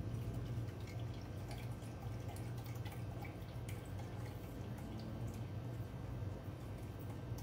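Broth pouring from a carton into a cooking pot: a trickle with small drips and splashes, over a steady low hum.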